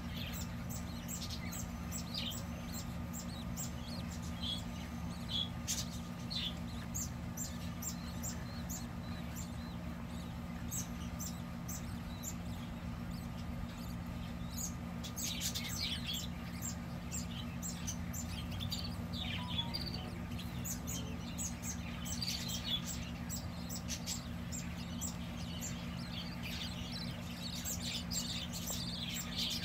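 Budgerigars in a nest box chirping: a rapid scatter of short, high cheeps that thickens into busier bursts now and then, over a steady low hum.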